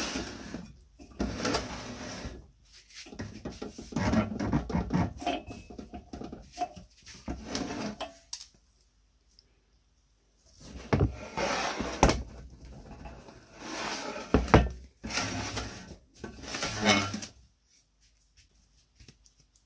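An antique cast-iron meat slicer being handled and turned over on a wooden bench: knocks, scrapes and clatter of its iron frame and loose metal parts against the wood, in several bursts with short pauses between them.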